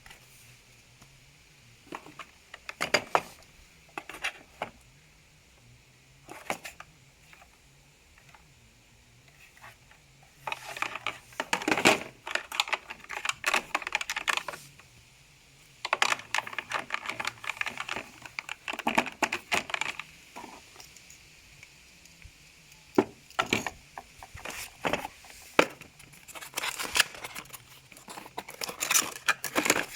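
Unpacking sounds: packaging crinkling and rustling in bursts of a few seconds, with scattered clicks and knocks of parts being handled.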